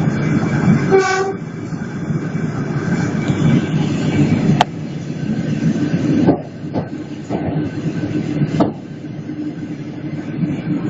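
Train running past: a steady rumble with several sharp clacks of the wheels, and a short pitched note about a second in.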